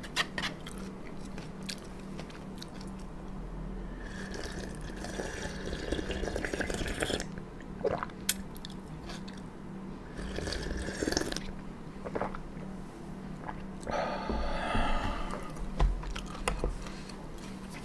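Close-miked eating sounds: chewing with small clicks, and two longer stretches of sipping and slurping cold buckwheat-noodle broth from a bowl, one about four seconds in and one near the end.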